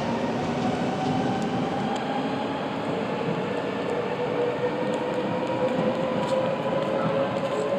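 Double-deck electric passenger train moving under a station roof: a steady rumble with a whine from the traction motors, rising gently in pitch as it gathers speed.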